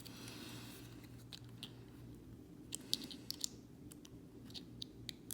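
Faint scraping and a scatter of small sharp metallic clicks as the stack of cells inside a used 9-volt battery is worked loose from its thin metal casing, over a low steady hum.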